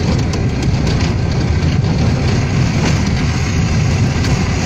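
A vehicle driving on a dirt road: a steady, loud, low engine and road rumble with small knocks and rattles.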